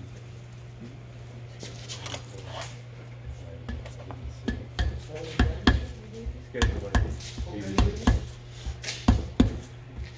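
A hand tool knocking and scraping against metal inside the cast-iron seal bore of a Flygt 3152 pump housing. Irregular sharp taps and clicks start about halfway in and come several times a second, over a steady low hum.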